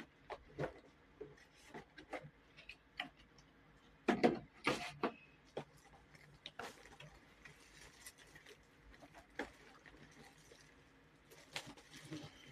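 Keys of an RK M75 wireless mechanical keyboard (full foam, PBT double-shot keycaps) being pressed one at a time at an irregular pace, a typing sound test. There is a louder cluster of strokes about four to five seconds in.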